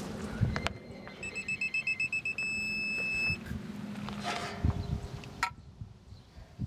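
Electronic torque wrench beeping in a quick run of short pulses as the U-joint bolt is pulled up, then holding a solid tone for about a second: the signal that the set torque has been reached. A few metal tool knocks follow.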